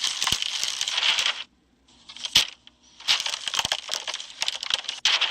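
Crunching, crackling noise full of sharp clicks, in three bursts: a long one, a short one about two seconds in, and another long one from about three seconds in.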